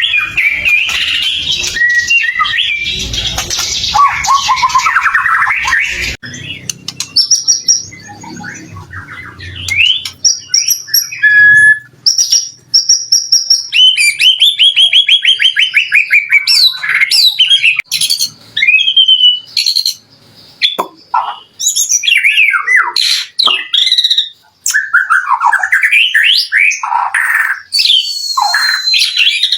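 White-rumped shama (murai batu) singing a long, varied song of clear whistles, fast trills and harsh notes. About six seconds in, the sound cuts abruptly from a noisier passage to cleaner song.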